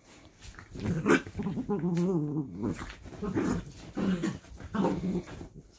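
Miniature dachshunds play-growling as they wrestle: several short growls, the longest one wavering about two seconds in.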